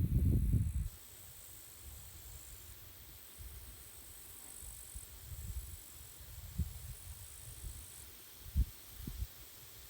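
Grasshoppers chirring in a steady high-pitched hum, with wind buffeting the microphone. A strong gust dies away about a second in, and a few weaker low gusts come later.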